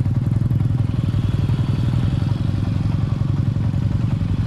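Small motorcycle engine running steadily at low riding speed, with a rapid, even firing pulse.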